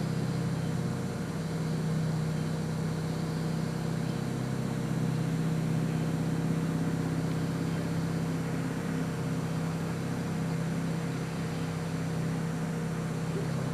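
A steady, unchanging low mechanical hum, like an engine running.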